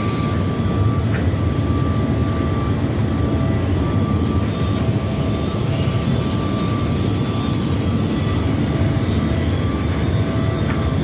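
Concrete block-making plant machinery running: a steady low mechanical drone with a constant high whine over it.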